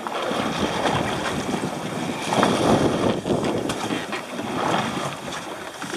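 Wind rushing over the microphone with sea noise on an open boat, a steady rush that swells louder about two and a half seconds in.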